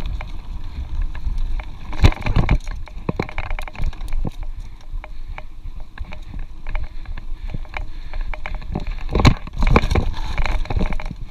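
Mountain bike riding fast over a dirt singletrack: wind buffeting the microphone with a steady rumble, over the rattle and clatter of the bike jolting on bumps and roots. Sharper knocks come about two seconds in and again around nine to ten seconds in.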